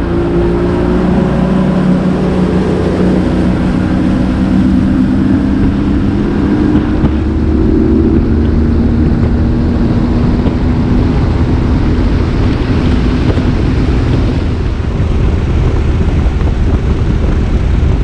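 Bass boat's outboard motor running at speed, with loud wind rush on the microphone. A steady engine tone sits under the noise through the first half and becomes less distinct later on.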